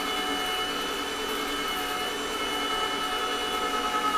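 Comfee vertical slow juicer running: its electric motor and auger turn steadily as they crush carrot and orange pieces, giving an even whirr with a steady high whine over it.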